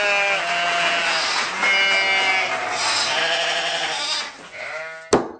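Audience applause and crowd noise with held, wavering pitched notes over it, fading about four seconds in, then a sharp click as the sound cuts out.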